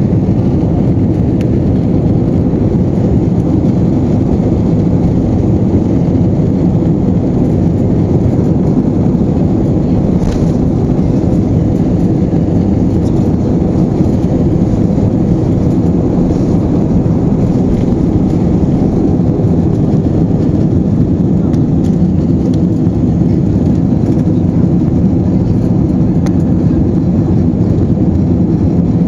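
Steady loud roar of an Airbus A320's jet engines and rushing air, heard from inside the passenger cabin.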